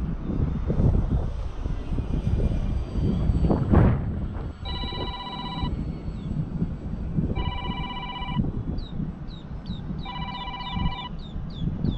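Wind buffeting the microphone in gusts, then an electronic telephone ring starting about five seconds in: a trilling ring lasting about a second, repeated three times.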